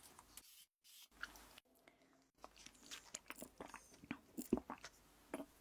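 Close-miked biting and chewing of crisp toast, a run of sharp crunches and crackles. It starts sparse with short silences and grows dense from a little before halfway.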